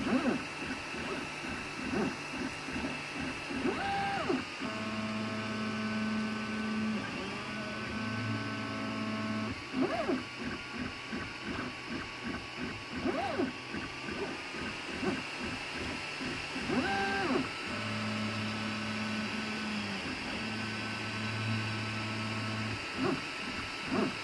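FDM 3D printer printing, its stepper motors singing steady pitched tones through long straight moves that last two to three seconds each. Short rising-and-falling whirs come between them as the print head speeds up and slows down on quick moves, over a steady whir.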